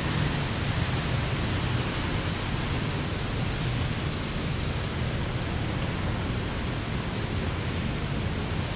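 Steady, even background noise: a hiss across the range with a low rumble, unchanging throughout, with no distinct events on top.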